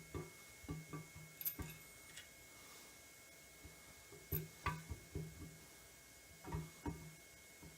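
Camshaft being slid by hand into a Ford 289 V8 block: scattered light metallic knocks and taps, some with a short ring, as the lobes and journals touch the cam bearings and block, in small clusters a few seconds apart.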